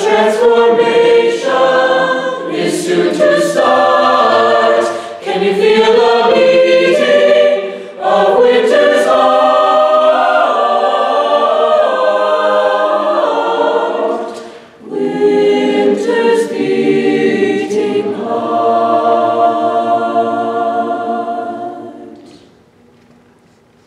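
Mixed-voice high school chamber choir singing a cappella, full chords with a brief breath about two-thirds of the way through. The phrase ends on a long held chord that dies away near the end.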